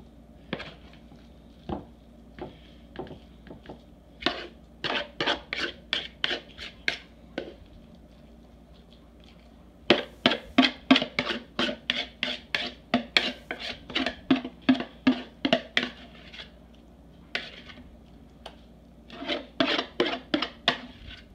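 Metal spoon knocking and scraping inside a plastic mixing bowl, scraping meatloaf mixture out into a loaf dish. The knocks come in quick runs of about three a second, with a few single knocks between the runs.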